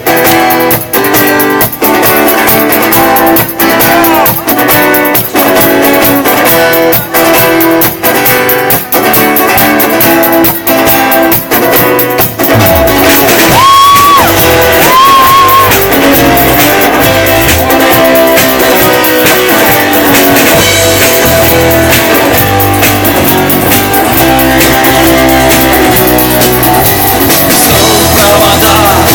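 Instrumental intro of a rock song played by a band: guitar strumming a steady rhythm, then about twelve seconds in bass and drums join and the sound fills out. Two short high wavering notes sound shortly after the band comes in.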